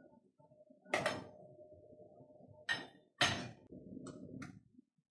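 Clunks and knocks from a mechanical gumball vending machine during a test purchase: a loud knock about a second in with a steady hum after it, two more loud clunks around three seconds in, then lighter knocks near the end.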